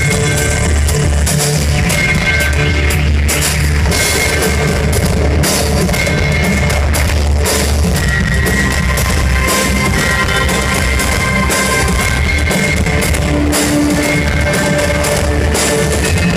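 Live rock band playing loudly on stage: a driving drum kit beat with guitar and sustained synth tones over a heavy bass.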